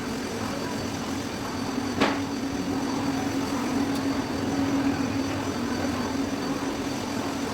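Steady mechanical hum with one sharp click about two seconds in.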